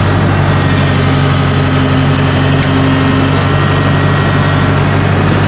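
Kubota DC70 combine harvester's diesel engine running steadily as the tracked machine creeps forward, with a higher hum held for about two seconds in the middle.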